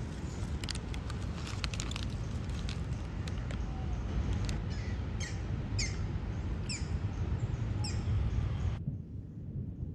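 A bird chirping repeatedly, a run of short falling chirps about half a second apart, over a steady low background rumble. Sharp clicks and crackles come in the first couple of seconds, and the high sounds cut off abruptly near the end.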